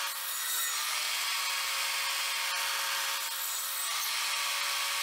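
Evolution R255SMS sliding mitre saw running steadily while making shallow, depth-stopped trench cuts into a wooden 4x2.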